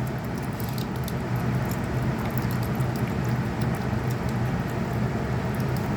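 Water trickling and dripping as it drains out of an opened plumbing line, over the steady hum of electric fans.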